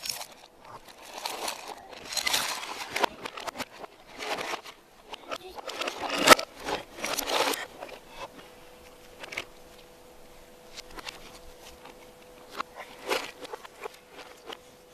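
Plastic toys and toy carts being handled by small children, rattling, scraping and clattering in irregular bursts, with one sharp knock about six seconds in. The audio is played backwards.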